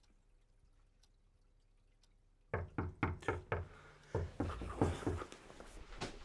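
Knocking on a door: a sudden rapid run of about five knocks starting about two and a half seconds in, then more knocking.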